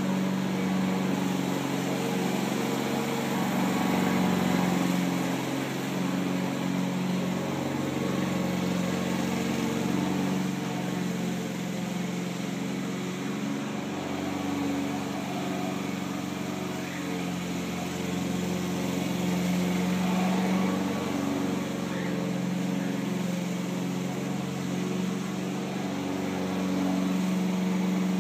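Honda walk-behind lawn mower's single-cylinder four-stroke engine running steadily under mowing load, its sound growing louder and fainter as the mower is pushed back and forth.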